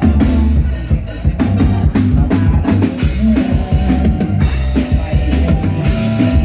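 Band music: a drum kit keeps a steady beat with bass drum and snare over a strong bass line.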